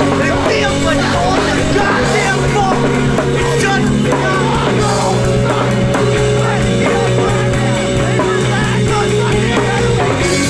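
Loud rock song played by a band, with a drum kit.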